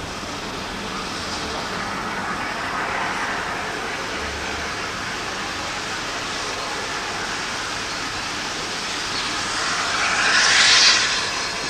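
Steam locomotive working hard as it pulls away, its exhaust thrashing steadily, growing loudest about ten seconds in as the engine passes close by.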